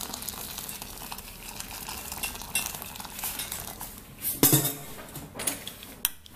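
Hot water pouring in a steady stream from a metal spout into a bowl of powdered cassava for eba. About four and a half seconds in, a metal spoon knocks loudly against the bowl, then clinks a few times as stirring begins.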